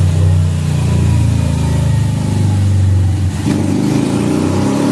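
Single-cylinder four-stroke Honda CG motorcycle engine on a dynamometer, exhausting through an SFX sport exhaust. It runs at a steady note at first, then about three and a half seconds in a full-throttle fifth-gear pull begins and the pitch rises.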